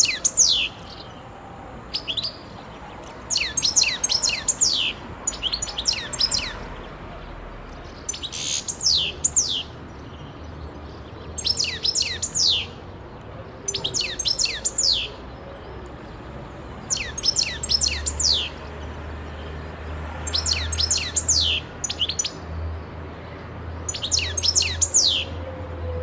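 European goldfinch singing: short bursts of fast, high twittering notes, each about a second long, repeated every two to three seconds.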